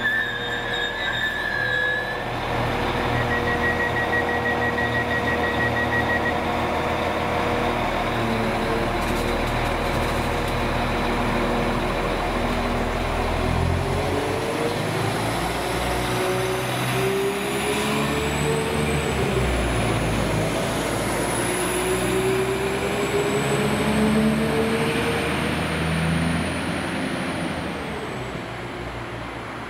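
Northern Class 195 diesel multiple unit pulling away from the platform, its underfloor diesel engines climbing in pitch twice as it accelerates through the gears. The sound fades over the last few seconds as the train draws away.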